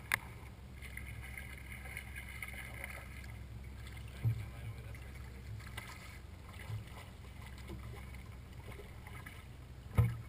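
Fishing tackle handled on a boat deck over a steady low hum. There are a few sharp clicks and knocks: one just after the start, a smaller thump about four seconds in, and the loudest near the end as a cast is made.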